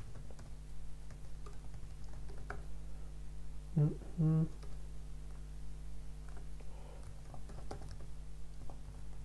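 Typing on a computer keyboard, irregular key clicks, over a steady low electrical hum. About four seconds in there is a brief wordless vocal sound.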